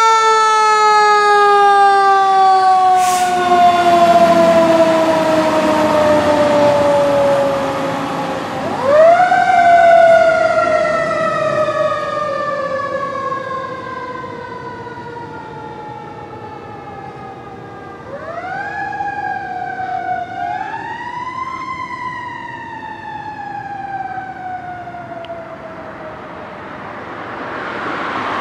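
Fire engine siren wailing: a long, slowly falling tone, swept sharply back up about nine seconds in and twice more later, each time coasting slowly down again.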